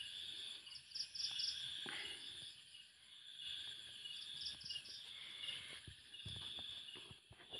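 Faint, steady chorus of insects chirping in roadside vegetation, with short pulsed trills about a second in and again about four and a half seconds in.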